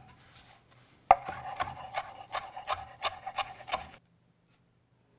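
Chef's knife chopping Italian parsley on a wooden cutting board: a quiet start, then a run of quick knife strikes on the board, about three a second, that stops about four seconds in.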